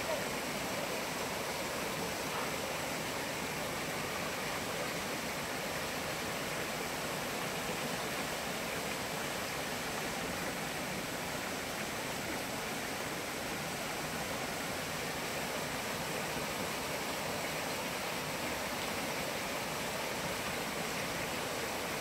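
Shallow mountain stream running over rocks and small stone ledges: a steady rushing and splashing of water.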